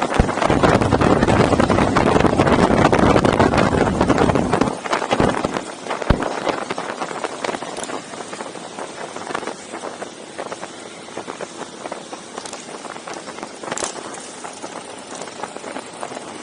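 Motorcycle engines running in a ride, loud for about the first five seconds and then dropping to a quieter steady rumble with scattered clicks.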